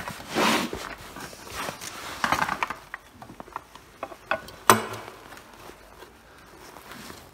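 A KTM Duke 125's alternator cover being handled and offered up to the engine case: rubbing and scraping of the cover and its wiring, a few light clicks, and one sharp knock a little before five seconds in as it meets the crankcase.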